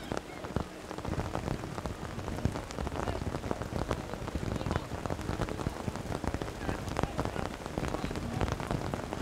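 Steady rain falling, heard as a dense, even crackle of drops.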